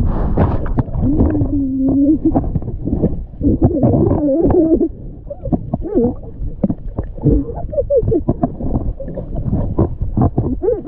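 Muffled underwater sound picked up by a submerged camera: a low rumble of moving water with many small knocks and pops, and warbling tones that rise and fall through it.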